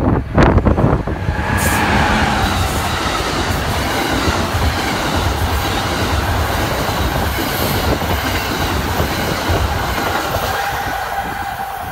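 Passenger train passing close by a station platform, its coaches rumbling and clattering over the rails with a faint, steady high whine from the wheels.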